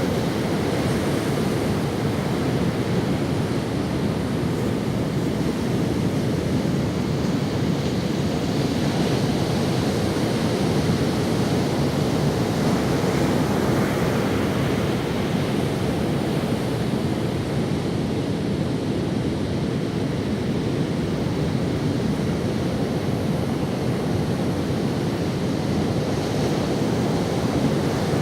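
Ocean waves washing onto a sandy beach: a steady rushing surf that swells and eases gently, with some wind on the microphone.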